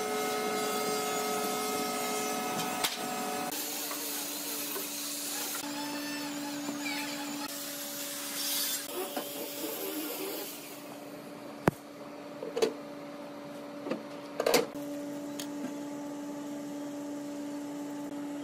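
Handheld woodworking power tools running on hardwood: a steady whine, then a rushing hiss over the first half. After that a quieter steady hum, broken by a few sharp knocks and taps.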